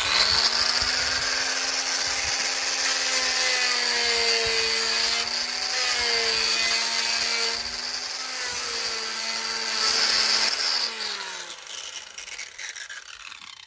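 Handheld power tool running steadily as it grinds down a transducer spacer, its motor pitch wavering a little under load. About eleven seconds in it is switched off and winds down with a falling pitch.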